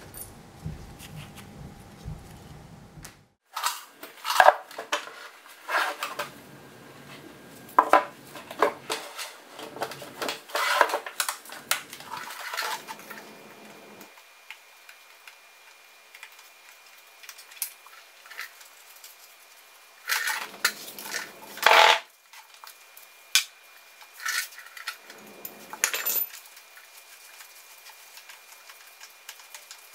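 Metal parts of a Borg-Warner T56 six-speed manual transmission clinking and clanking as it is taken apart by hand, in irregular bursts of knocks and rattles with pauses between them.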